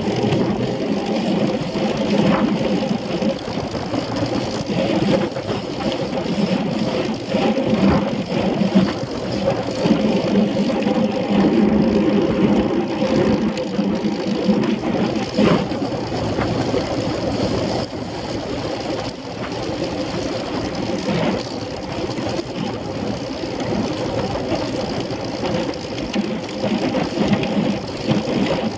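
Steady rumble and rattle of a track bicycle riding on a velodrome track, picked up by a camera mounted on its handlebars, with many small knocks through it.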